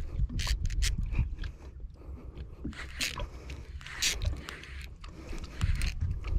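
Irregular knocks, clicks and scrapes of handling noise on a fishing boat, over a steady low rumble.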